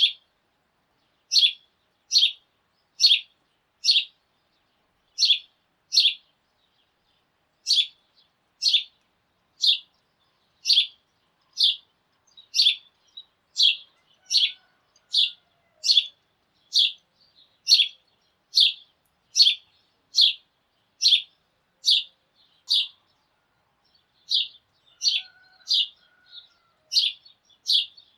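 A sparrow chirping over and over: short, high, single chirps at about one a second, with a few brief pauses, and faint lower calls from other birds now and then.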